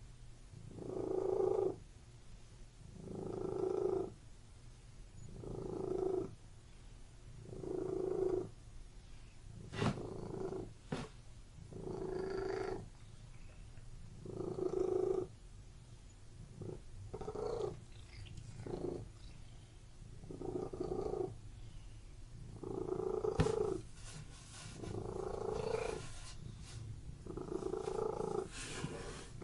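Domestic cat purring, a continuous low rumble that swells louder about every two seconds with each breath, with a few faint clicks along the way.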